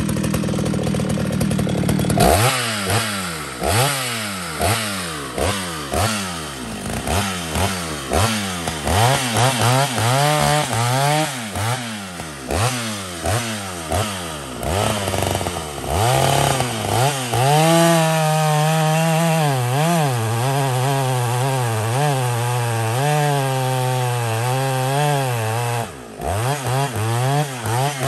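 Vintage Jonsered 920 two-stroke chainsaw being tuned. It runs flat out for about two seconds, then is revved up and down in about a dozen quick throttle blips. From about halfway it holds a fast, wavering speed, dips briefly near the end and revs up again.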